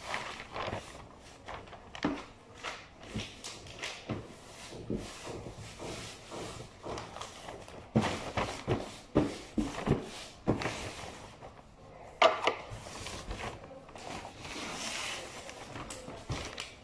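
Sheet of wrapping paper crinkling and rustling as it is folded and pressed around a large cardboard carton, with irregular crackles and knocks, busiest in the middle and with a sharper burst about twelve seconds in.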